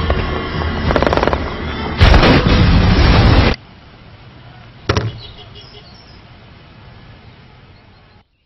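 Television soundtrack of an action film, music with gunfire and explosions, that cuts off abruptly about three and a half seconds in. About a second later comes a single sharp click, and a low, steady hum remains.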